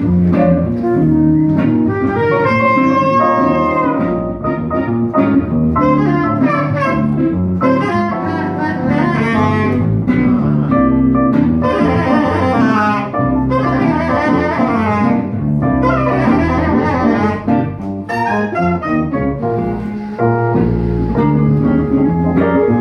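Live jazz quartet playing: a saxophone takes the lead with bending notes and fast runs over electric keyboard, upright double bass and guitar.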